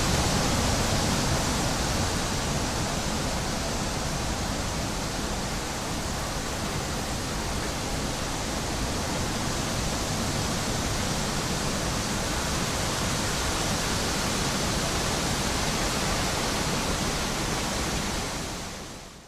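Wind sound effect: a steady rushing noise with no pitch, fading out near the end.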